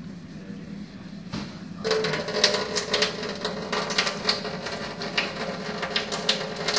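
Kitchen faucet turned on about two seconds in: water running and spattering into a stainless steel sink, dense irregular splashing clicks over a steady hiss and a steady tone.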